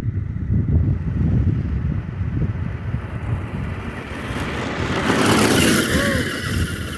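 Remote-control toy car running over the ground, a low uneven rumble, then a rushing hiss that swells and fades in the second half. A few short rising-and-falling chirps near the end.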